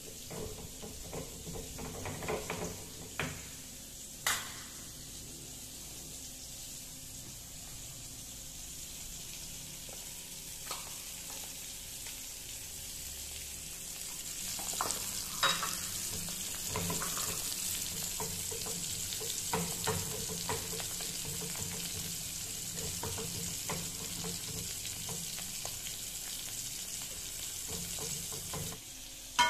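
Salted fish frying in oil in a wok: a steady sizzle with scattered pops, growing louder about halfway through. Near the start, a few sharp knocks as a pestle grinds sambal terasi in a clay mortar.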